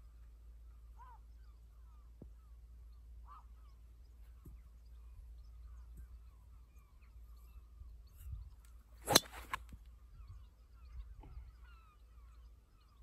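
Golf driver striking a teed ball: one sharp crack about nine seconds in, the loudest sound, with a smaller click just after. Under it, steady wind rumble on the microphone and faint bird calls.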